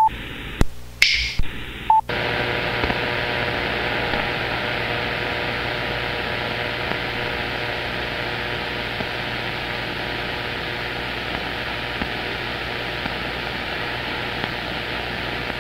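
CB radio receiver on the 11-metre band hissing with static on an open channel while skip signals are awaited. In the first two seconds a few clicks and two short beeps cut in and out as other stations unkey, then steady hiss with faint steady tones underneath.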